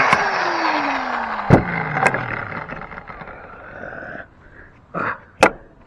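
Porter-Cable 557 plate joiner's 7.5 amp motor winding down after being switched off, its whine falling steadily in pitch and fading over about two and a half seconds, with a couple of sharp clicks. Two sharp knocks follow near the end.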